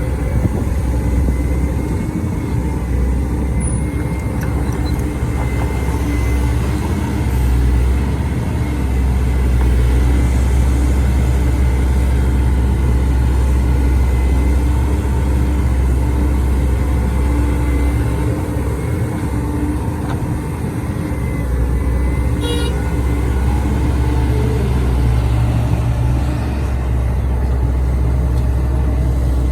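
Heavy diesel engine running steadily under a low, even drone, with a faint high steady whine above it and one brief sharp clank a little over twenty seconds in.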